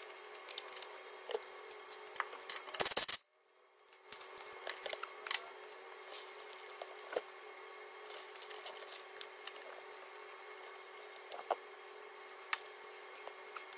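Handling noise of a ribbed auxiliary drive belt being worked over the engine's pulleys by hand: scattered light clicks and knocks over a steady faint hum, with a louder clatter about three seconds in.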